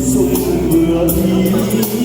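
Pop backing music with a steady beat of high, cymbal-like strikes under a held melody line.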